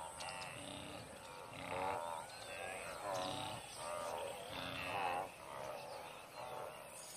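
A herd of wildebeest calling: many animals give repeated calls, one or two a second, overlapping one another.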